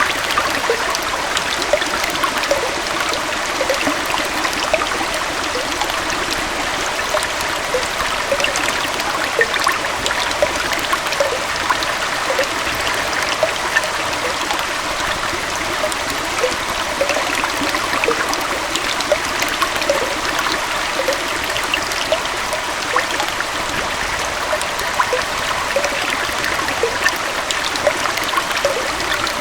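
Small waterfall and stream flowing steadily, a constant rush of water with many small splashes and gurgles.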